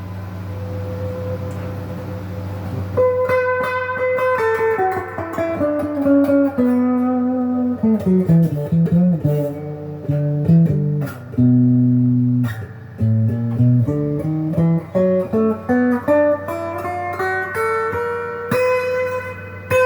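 Epiphone Les Paul Jr. electric guitar on its single bridge pickup. One note rings for about three seconds, then a run of single notes walks steadily down and climbs back up to the starting pitch near the end, over a steady low drone.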